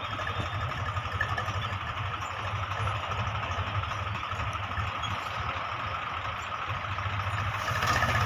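Farm tractor engine running steadily while ploughing a field, with a fast, even low chug. It grows louder near the end.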